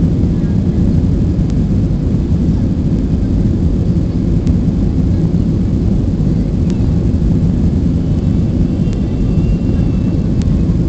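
Airplane taking off: its engines and rushing air make a steady, loud low rumble, with a few faint clicks.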